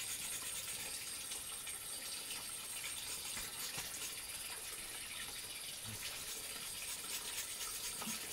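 Steady chorus of insects chirping, a continuous high-pitched trill with a faint hiss under it.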